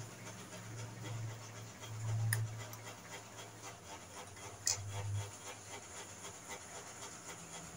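Pliers working a twisted steel wire end: two sharp clicks about two and a half seconds apart, over a low uneven rumble.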